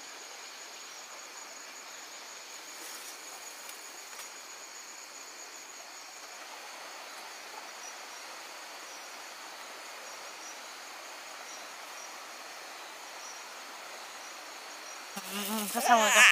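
Steady chorus of insects, crickets or cicadas, chirring with thin high unbroken tones. A person's voice starts near the end, louder than the insects.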